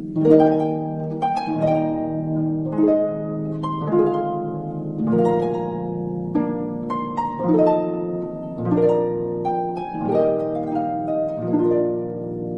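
Background music: a harp playing slow plucked notes and chords that ring on over one another, a new note or chord about once a second.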